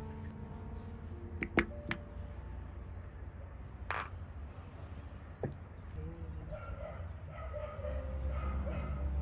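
Tea glasses and a china saucer clinking as they are handled and set down on a table: a few sharp clinks, the loudest about a second and a half in, and single ones later. From about two-thirds of the way through, a dog gives short repeated yips.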